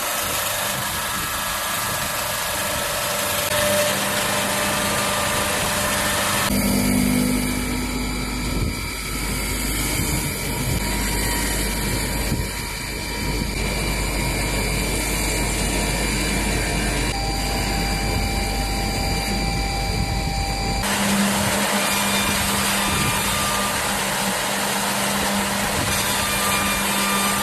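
CNC woodworking machining center running: a continuous mechanical noise with faint steady high-pitched tones. The sound changes abruptly about six seconds in, with a steady low hum added, and switches back near 21 seconds.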